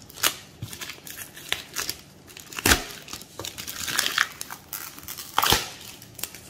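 Clear plastic wrapping being torn off a cardboard product box and crumpled: a run of crackles and rustles, with two louder rips, about two and a half and five and a half seconds in.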